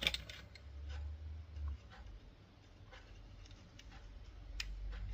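Faint clicks and taps of small plastic model-locomotive parts being handled and fitted together, a few near the start and a couple near the end.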